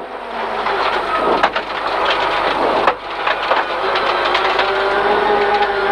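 Rally car driven hard on a loose gravel stage: the engine runs under load while stones and gravel continuously clatter and knock against the car's underside and wheel arches.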